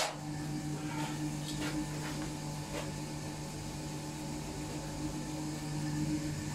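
Steady hum of electric machinery in a blacksmith's forge, with a sharp clank right at the start and a few light clicks in the first three seconds as a hot iron bar is worked out of the coal fire.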